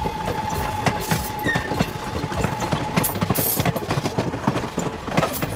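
Vintage passenger coaches rolling past close by, their wheels clattering and clicking irregularly over the rails. A thin steady tone runs underneath and stops about two seconds in.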